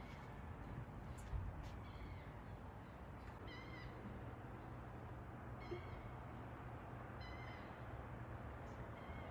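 Three short, high-pitched squeaks or calls, spaced a couple of seconds apart and starting about a third of the way in, over a steady low hum.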